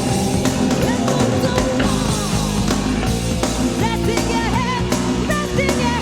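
Melodic heavy metal recording: distorted guitars, bass and drums, with a lead melody that slides and wavers with vibrato in the second half and settles into a long held note near the end.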